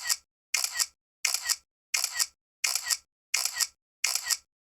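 A short sound effect of quick, bright clicks, played again and again about every 0.7 seconds, identical each time, with dead silence between the plays.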